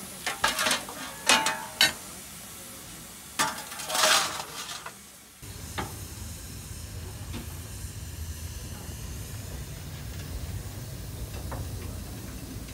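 Metal clanks and scrapes at the open firebox of a Hudswell Clarke 0-6-0 narrow-gauge steam locomotive as the fire is tended, with a louder scraping rush about four seconds in. After a sudden cut just past five seconds there is a steady low rumble with hiss on the footplate.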